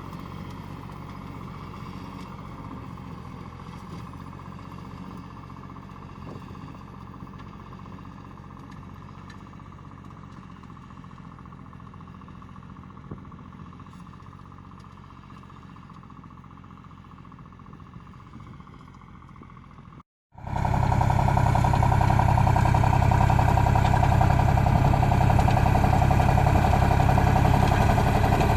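Tractor engine running steadily while it pulls a ridge-forming plastic-film mulcher, at first at a distance and slowly fading. After a sudden cut about two-thirds of the way through, the engine is loud and close, holding a steady pitch.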